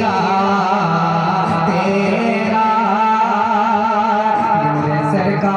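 Naat sung by a male voice, holding long, wavering, drawn-out notes over a steady low drone.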